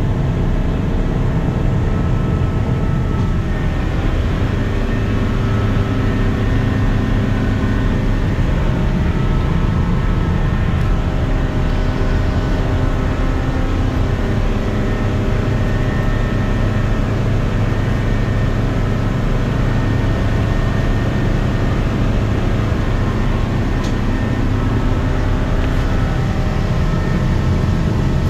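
Boat engine running steadily under way, an even drone that shifts slightly in pitch now and then.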